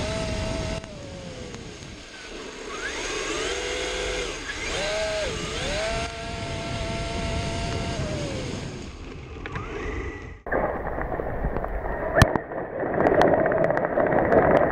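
8S Traxxas X-MAXX electric RC monster truck's brushless motor and drivetrain whining, the pitch rising and falling several times as it speeds up and slows. About ten seconds in, the sound switches abruptly to a muffled rushing noise with a few sharp clicks.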